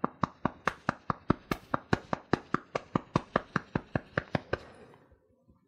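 Fingertips tapping steadily on the body at the under-arm EFT tapping point, about four to five light taps a second, stopping about four and a half seconds in.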